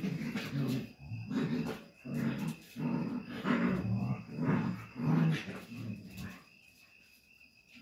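Dogs growling in a play-fight between a mother dog and her puppies: a run of short, rough growls about every half second to a second, stopping about six seconds in.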